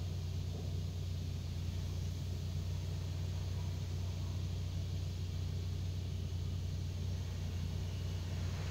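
Steady low hum of automatic car-wash machinery and the car's running engine, heard from inside the closed car cabin, with a faint hiss of spray over it.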